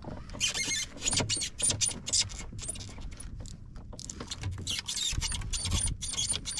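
Fishing reel clicking and squeaking in quick, irregular runs as line is worked against a big fish on the hook, over low boat and water noise.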